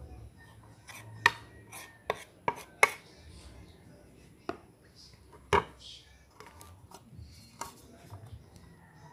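Hard kitchen utensil knocking and tapping on a plate as chopped onion is gathered up: a quick run of four sharp knocks in the first three seconds, then a few spaced ones.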